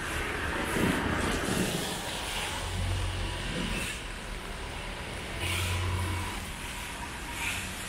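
City street traffic, with several motor vehicles passing one after another.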